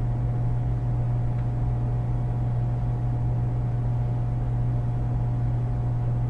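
Dishwasher running between cycle stages, giving a steady low electrical hum with no change in pitch or level.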